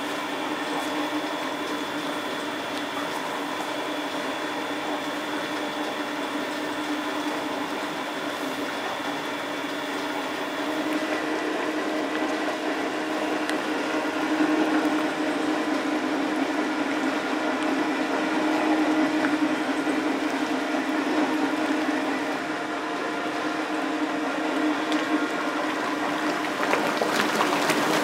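Steady hum of machinery in a curry roux factory, with a sound of moving liquid. It grows a little louder about eleven seconds in.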